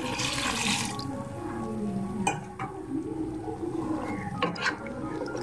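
Water poured from a jug into a pot of curry for about the first second, then a wooden spatula stirring the wet curry and knocking against the non-stick pot a few times.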